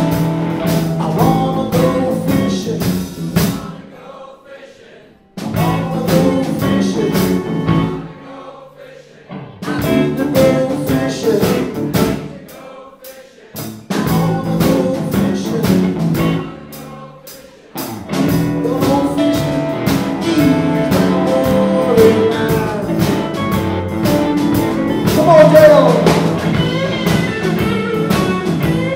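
Live electric blues band playing: electric guitars, bass guitar and drum kit. The band cuts out abruptly about four times in the first eighteen seconds, each break lasting a second or two, then plays on without a break.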